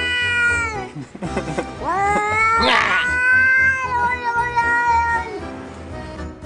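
Angry long-haired cat yowling: a drawn-out call that tails off just under a second in, a few short rising cries, then a second long yowl of about three seconds with a harsh rasp near its middle. Background music plays underneath.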